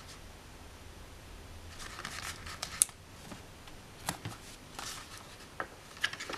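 Soft rustling of paper sticker sheets and a few light clicks and taps as stickers are peeled off and pressed onto a planner page. The sharpest click comes about three seconds in.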